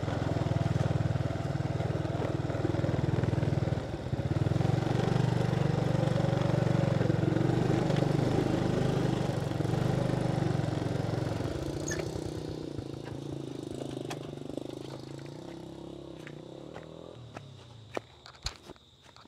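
Small motorbike engine running at low speed along a rough dirt track, then weakening and fading away over the last several seconds. A few light clicks near the end.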